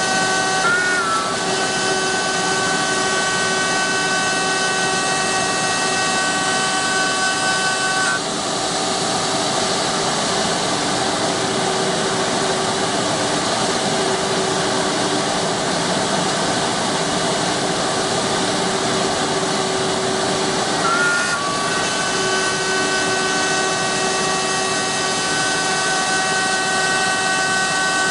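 CNC wood lathe's router spindle milling spiral flutes into a turning wooden column: a steady high motor whine over the rough hiss of the bit cutting wood. Some of the higher whine tones drop out about eight seconds in and come back about twenty-one seconds in.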